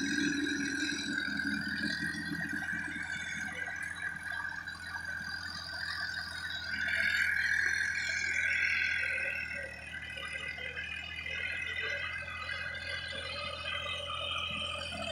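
Sonalika DI-50 RX tractor pulling a rotary tiller through dry stubble: the rotavator rattling and whining over the steady engine hum, getting louder for a couple of seconds about seven seconds in.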